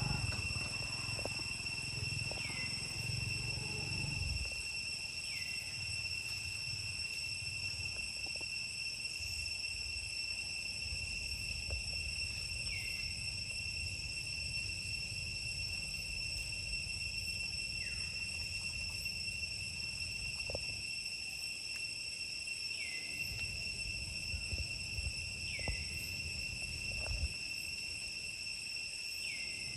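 Steady high-pitched drone of insects, several held tones at once, with a short chirp recurring every few seconds. A low rumble and a few faint clicks sit underneath.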